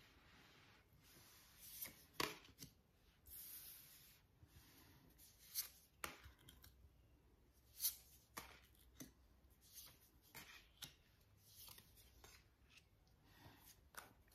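Tarot cards being dealt and laid down one at a time on a tabletop: faint, irregular taps and short slides of card stock, with a sharper snap about two seconds in and another near eight seconds.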